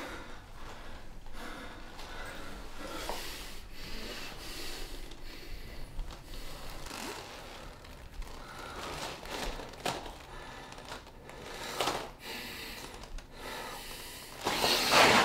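A man crying quietly: uneven, heavy breaths and sniffs, with some rustling, and a louder burst of breath noise near the end.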